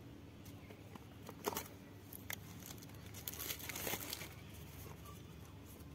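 Clear plastic wrap on a small cardboard earbuds box being slit and peeled off: faint crinkling and rustling with a few sharp ticks, busiest around four seconds in.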